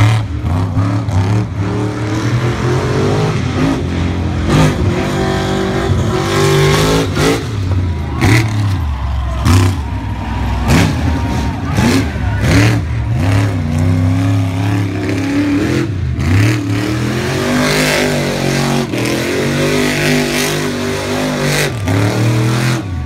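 Monster truck engine revving hard, its pitch climbing and dropping again and again as the truck spins on the grass, with short sharp cracks scattered throughout.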